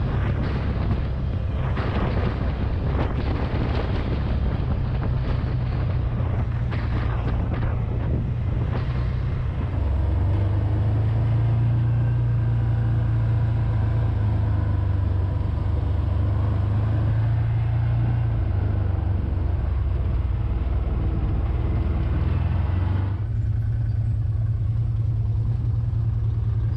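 Side-by-side UTV engine running steadily at road speed, heard from inside the cab with wind and road noise. The engine hum shifts up about ten seconds in, and the rushing noise drops about 23 seconds in as the machine slows.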